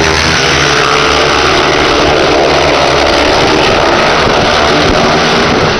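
Speedway motorcycles' single-cylinder methanol engines running loud, the pitch sinking over the first couple of seconds and then climbing again.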